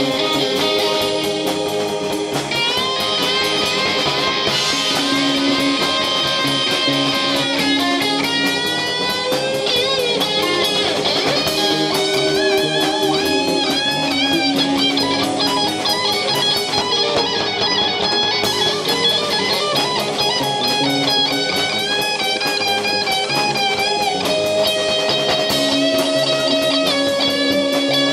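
Live rock band playing an instrumental passage: an electric guitar plays a lead line with bent, sliding notes over drums, bass and keyboards.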